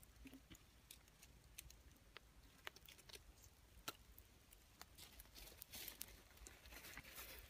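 Faint crackling of a wood-ember fire: scattered small pops and clicks, growing denser near the end.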